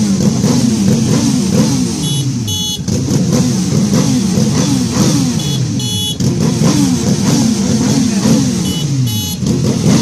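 Motorcycle engines revving over and over, pitch rising and falling again and again. A pair of short high tones sounds three times, at even spacing.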